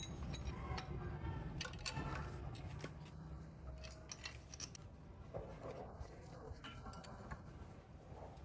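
Scattered light clicks and metallic clinks of hand tools and engine parts being handled, irregular and fairly quiet.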